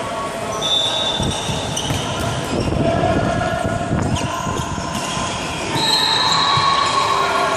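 Volleyball rally on an indoor court: sneakers squeaking on the hall floor, twice in a long, high squeal, over a run of footfalls and knocks from players and ball, echoing in a large hall.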